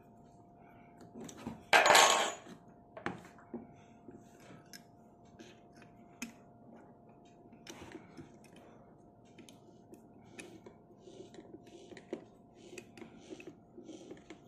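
Small metal clicks and ticks of a keyed drill chuck being handled: the chuck key, the drill bit and the chuck's knurled sleeve clinking together as the jaws are opened and the bit is fitted by hand. There is one louder metallic clatter about two seconds in.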